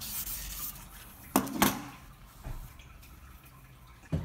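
Sandpaper rubbing across a steel axe bit, stopping within the first second. Then two sharp knocks close together about a second and a half in, and another knock near the end.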